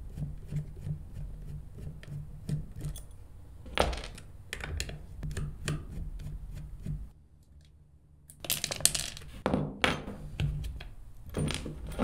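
Small metal clicks and clinks of an 8 mm wrench and a Phillips screwdriver working the nuts and bolts that hold a trolling-motor foot pedal's micro switch, over a low steady hum, breaking off briefly about seven seconds in.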